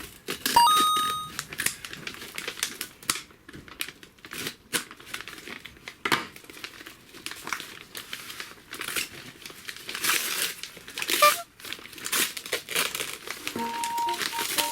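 Packaging being unwrapped: irregular crinkling and rustling with some tearing. A chiming melody starts near the end.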